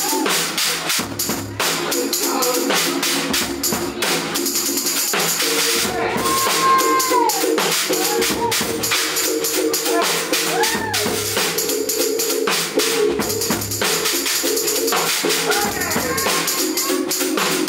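Live drum kit played hard and busily: rapid drum hits under a constant wash of cymbals, over held pitched notes, with a few sliding, arching pitches above.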